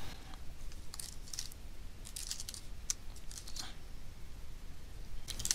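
Keystrokes on a computer keyboard in short, irregular runs as a terminal command is typed.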